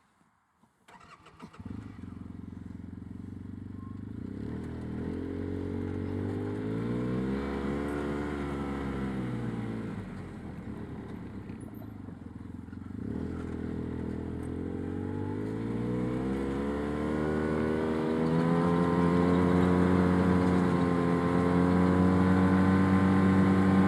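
Arctic Cat Wildcat Trail UTV engine starting up about a second in, then running as the machine pulls away. The pitch rises and falls twice under throttle, then climbs and holds higher and louder as it picks up speed.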